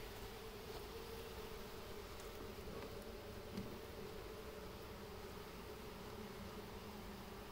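Honeybees buzzing around an opened hive, a steady low hum. A single light knock comes about three and a half seconds in.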